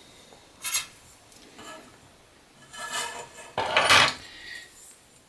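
Measuring and marking tools handled on a sheet of aluminum: a few light scrapes and knocks, with a louder scraping rub about four seconds in.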